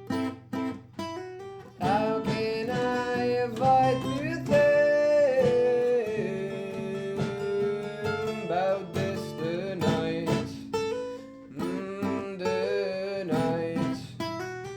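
Live acoustic band music: plucked acoustic guitars, with a held melody line over them from about two seconds in that slowly slides down in pitch.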